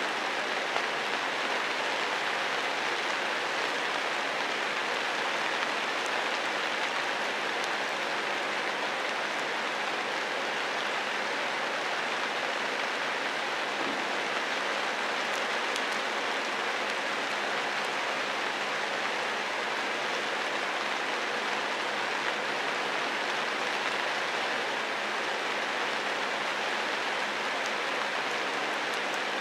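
Steady rain falling on dense foliage, an even hiss.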